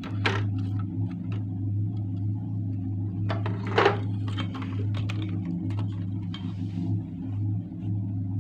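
Clicks and knocks from a CRT TV's circuit board, cables and plastic chassis being handled, with one louder knock about four seconds in, over a steady low hum.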